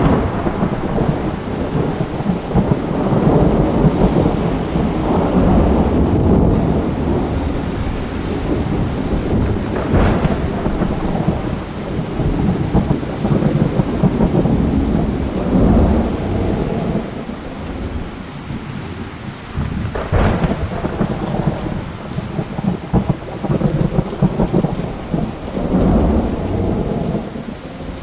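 A thunderstorm with rain: rolling thunder rumbles that swell and fade over the steady noise of rain. Sharp thunder cracks come near the start, about ten seconds in and about twenty seconds in.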